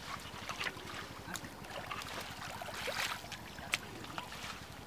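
Wet mud squelching and sloshing as people wade through it and dig into it with their hands, with scattered short splashes over a steady low hum.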